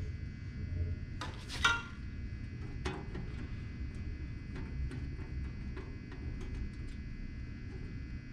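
Metal tools being handled at the sander: a couple of sharp metallic clinks with a brief ring about one to two seconds in, a smaller knock near three seconds, then faint scattered ticks over a low steady background.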